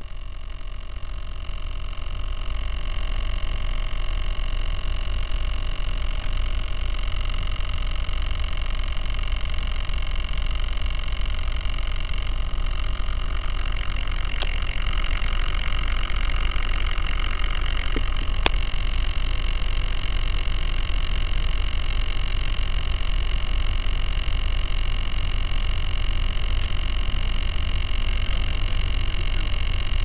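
Wind rumbling over the microphone of a small camera lying in grass, with a steady high hum behind it and a sharp click about eighteen seconds in.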